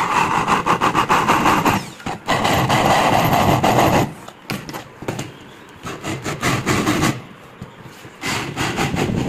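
Handheld electric drill boring a hole into a laminated wooden board, the motor running under load with wood-cutting noise. It stops briefly at about two seconds, runs again until about four seconds, and starts up again near the end.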